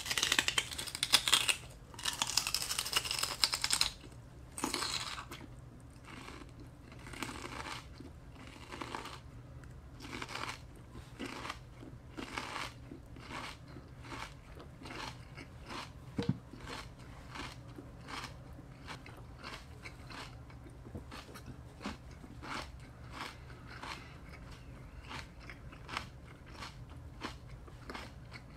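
Raw celery bitten and crunched loudly for the first few seconds, then chewed with a steady rhythm of crisp, wet crunches that grow quieter as the mouthful breaks down.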